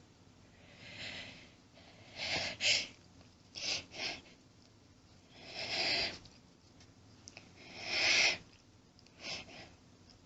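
A person in a sneezing fit, about six breathy bursts in a row: sharp gasping inhales, sniffs and stifled sneezes held back to keep them quiet. The loudest come about two and a half seconds in and near eight seconds.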